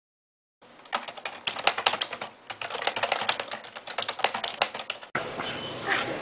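Fast, irregular typing on an ergonomic computer keyboard, its keys clicking densely for about four seconds. It cuts off abruptly and is followed by a steady background hiss.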